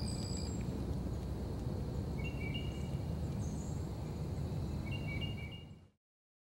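Swamp ambience: a steady high insect trill that stops about half a second in, a few short high chirping calls around two and five seconds in, over a low rumbling noise that fades out to silence near the end.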